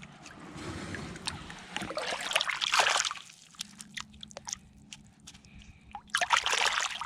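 Hands sloshing and splashing in shallow river water while lifting out a stone. There are two louder bursts of splashing, about two to three seconds in and again near the end, with a few small clicks in between.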